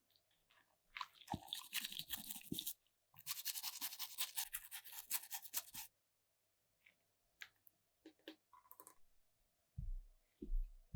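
Rapid hand scrubbing or brushing strokes on a small workpiece, in two stretches a few seconds long, followed by a few light clicks and low knocks near the end.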